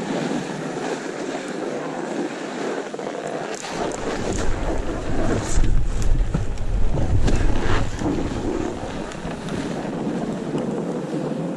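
Wind rushing over an action camera's microphone while skiing down packed snow, with the skis hissing and scraping over the snow. About a third of the way in, heavy low wind buffeting sets in for a few seconds, with a few sharp clicks and knocks, then eases back to a steady rush.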